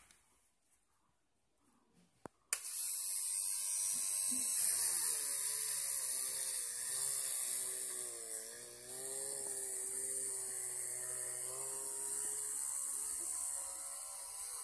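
Small hand-held DC motor with a thin drill bit in a homemade chuck, switched on with a click about two and a half seconds in and drilling into a wooden board. Its whine wavers and dips in pitch as the bit loads the low-powered motor.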